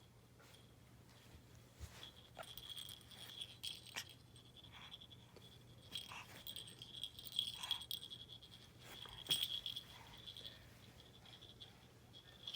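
Faint, intermittent rattling with scattered small clicks, coming and going in short spells.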